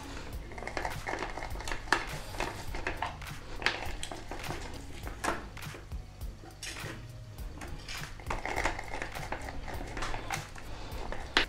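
A lemon half is twisted and pressed on a hand citrus juicer with a plastic reamer, with squeaky rubbing. Light knocks and clinks come from the juicer bowl and other dishes being set on the counter.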